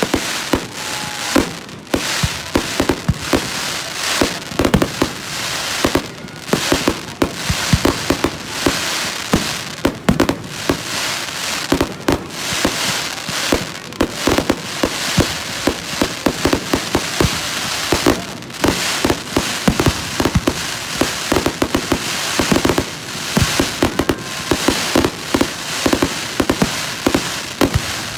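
Aerial fireworks display going off close by: a dense, continuous barrage of bangs and crackling shell bursts, many reports a second.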